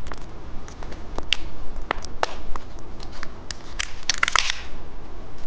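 Candy being crunched, with scattered sharp cracks and clicks and a brief burst of crinkling packaging about four seconds in.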